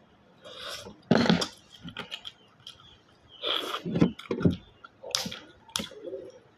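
Snails in coconut sauce being sucked and slurped noisily out of their shells, in several hissing pulls, with a few sharp clicks of shells being handled.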